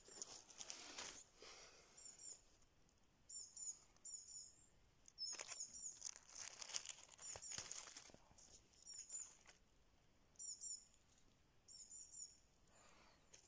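Dry fallen leaves rustling and crackling in short spells as they are disturbed, while a small bird keeps repeating a short, high double chirp every second or two.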